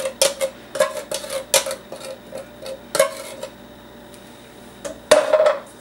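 Utensil clinking and tapping against a container while pizza sauce is scooped out: a quick run of sharp clinks with a short ringing tone over the first three seconds, then one more clink near the end.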